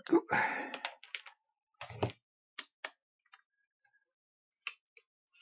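Sharp plastic clicks and knocks from handling a wind-up torch's opened case and clear lens: a short clatter at the start, then about half a dozen separate clicks.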